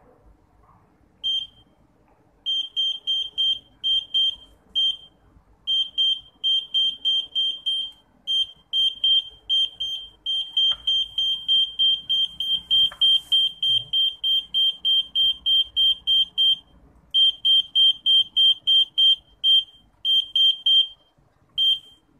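Piezo buzzer of an Arduino ultrasonic parking sensor beeping at one high pitch, about four short beeps a second in runs broken by short pauses: the alarm that the object is too close.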